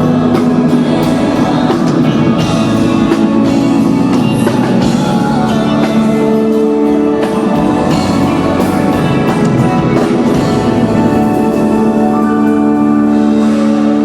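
Music with long held notes and chords and a singing voice.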